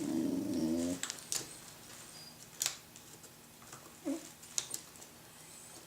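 Small sharp clicks and taps of laptop parts being handled, a few scattered over several seconds, after a brief pitched whine in the first second.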